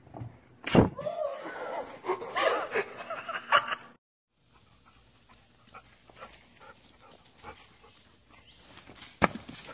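A sharp knock just under a second in, then a kitten mewing again and again in high, wavering calls for about three seconds. The sound then cuts off, leaving only faint scattered ticks.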